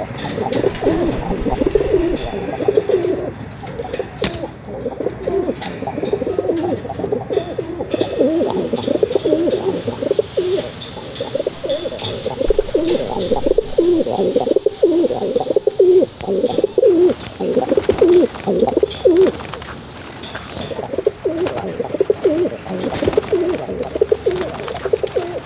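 Pigeon cooing, one coo running into the next, with a short lull about twenty seconds in.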